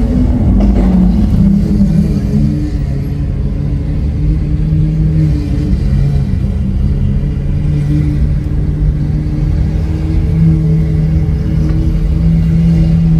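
Lamborghini Aventador SV Roadster's V12 with a Capristo exhaust running at low revs, a deep steady drone. Its pitch steps down over the first couple of seconds as the revs fall, then holds steady.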